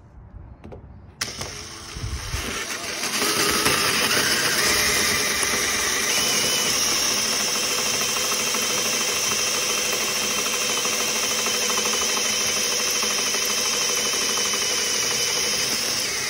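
Power drill with a spot weld drill bit boring out spot welds in the van's sheet-steel door sill, to separate the top layer from the panel behind it. The drilling starts suddenly about a second in, builds over the next couple of seconds, then runs steady and loud.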